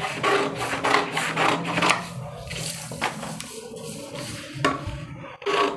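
Large tailoring scissors cutting along a marked blouse pattern, a quick run of short snips over the first two seconds. Near the end the sheet is shifted and handled.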